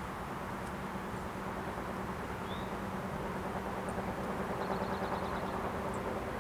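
Steady outdoor background noise, a low hum and hiss, with a few faint high chirps, including a quick run of chirps a little past the middle.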